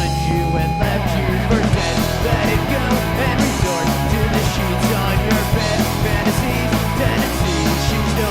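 Amateur rock band playing loud, full-band rock with guitars and drums keeping a steady beat.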